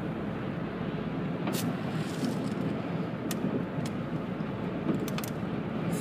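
Steady road noise inside a moving car: engine and tyre rumble while driving at moderate speed, with a few faint clicks.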